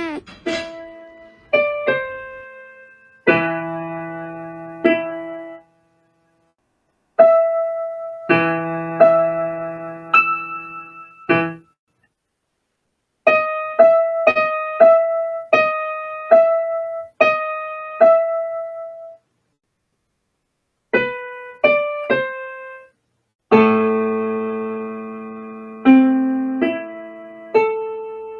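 Solo piano music: slow, sparse phrases of struck notes that ring and fade, broken by a few silences of a second or two.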